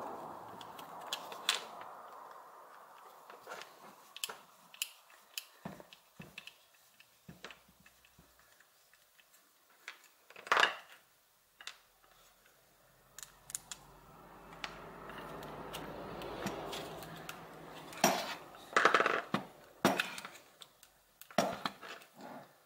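Hand-disassembly of an old Bosch hammer drill: a screwdriver working Phillips screws out of the plastic housing, with a run of sharp clicks and light metallic clinks as small screws and a plastic cord clamp are set down and the housing is handled. The loudest knocks come about ten seconds in and in a cluster near the end.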